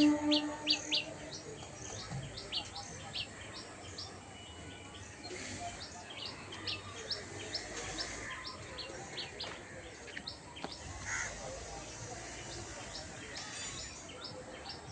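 Small birds chirping: many short, high chirps in quick succession, over low outdoor background noise.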